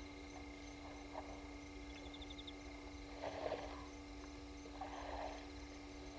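Elephants drinking at the water's edge: two short splashing whooshes of water, about a second and a half apart, over steady faint chirping of night insects.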